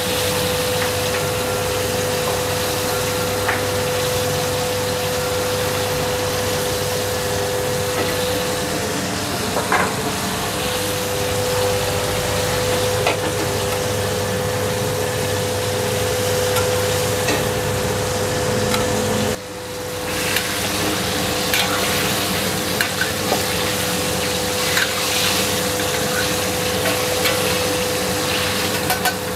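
Chicken karaage deep-frying in a wok of very hot oil, a steady sizzle, with scattered clinks and scrapes of a metal spider strainer against the wok. A steady hum runs underneath.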